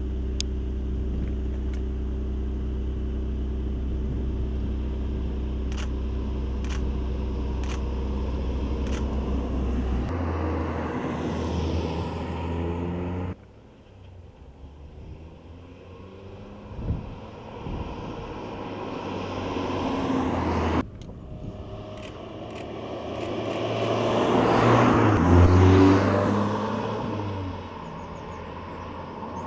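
Audi S1 Sportback's turbocharged 2.0-litre four-cylinder engine, first running at steady revs, then revving up as the car accelerates. After that the car approaches and passes, the engine note rising in pitch under acceleration and loudest about three quarters of the way through, then fading as it drives away.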